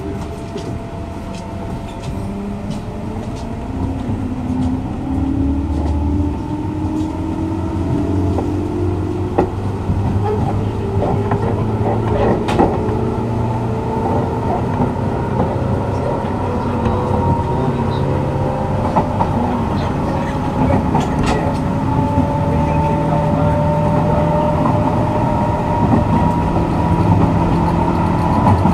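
JR West 201 series electric train accelerating, its traction motors and gears whining in several tones that climb steadily in pitch as it gathers speed, over a low running rumble. Sharp clicks from the wheels on the rails come through now and then, and the sound grows louder throughout.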